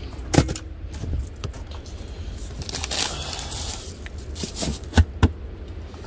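Hands handling crinkly plastic food packaging: crinkling in the middle, a sharp knock near the start and two quick knocks near the end, over a steady low rumble.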